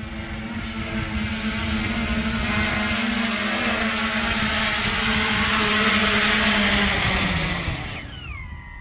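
Electric brushless motors and APC propellers of a Titan Dynamics Narwhal VTOL aircraft in hover, a steady propeller drone and whine that grows louder as the aircraft comes close. About eight seconds in the drone drops away, and whines glide down in pitch and level off into steady tones.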